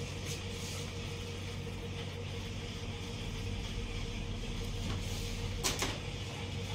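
A steady low mechanical hum, with a short click or scrape about six seconds in.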